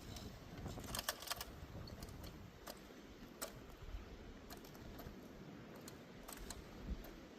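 Irregular light clicks and clacks of stones knocking together, a quick cluster about a second in and single ones after, over a low rumble of wind on the microphone.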